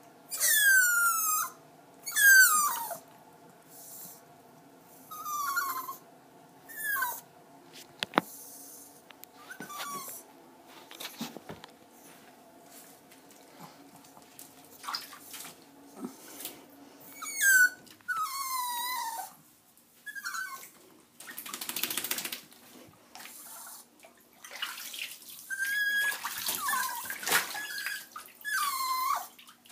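Jack Russell terrier puppy whining again and again, each high cry falling in pitch. Water splashing in the bathtub in the second half.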